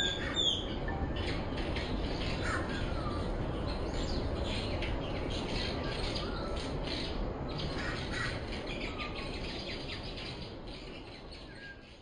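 Cloud forest ambience: several birds giving short chirps and gliding whistles over a steady background hiss, fading out near the end.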